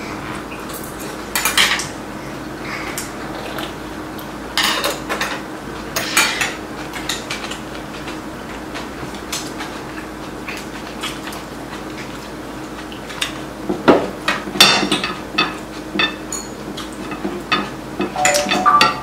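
Metal chopsticks and spoons clinking and scraping against ceramic bowls and plates in scattered short clicks, busiest in the last few seconds.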